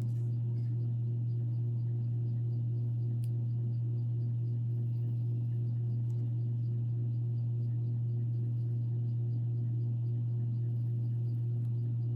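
Faint, rapid, evenly repeating strokes of a marker colouring on paper, over a steady low hum.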